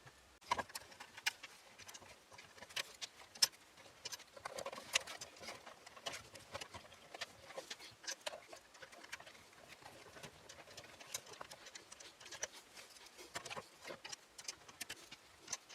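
Faint, scattered clicks and taps of a PC case fan being handled and fitted onto a CPU cooler.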